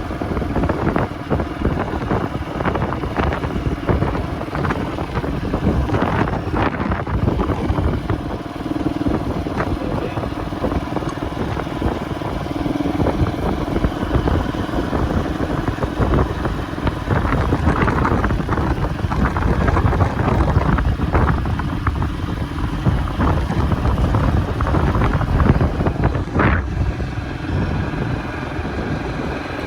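Wind rushing and buffeting against the microphone in gusts, over a steady low hum.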